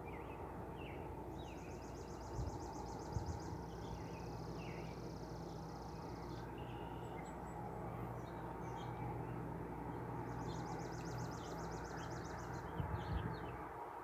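Small birds calling outdoors: scattered short chirps and, twice, a high dry buzzing trill lasting about two seconds, over a steady low hum and a few soft knocks.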